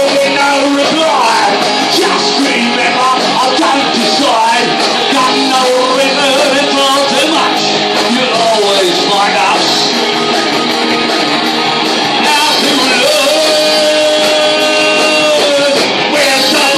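Live rock band playing a cover song, electric guitar and drums with singing; a single note is held for a couple of seconds near the end.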